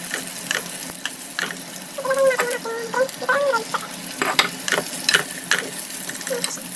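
Sliced onions, carrots and bell peppers sizzling in oil in a nonstick frying pan as they are stir-fried. A steady hiss runs under repeated short scrapes and clicks of the stirring on the pan.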